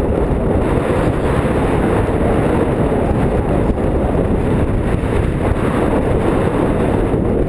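Wind buffeting the microphone: a loud, steady rushing noise, deepest in the low end.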